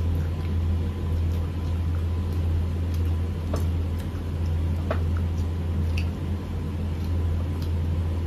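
A steady low hum, with scattered soft clicks and squishes of rice and curry being eaten by hand from plates.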